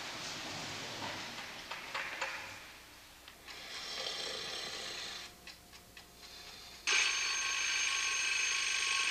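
Alarm clock ringing: a shorter, fainter burst of ringing around four seconds in, then a loud, steady ring from about seven seconds in, the wake-up call to get out of bed.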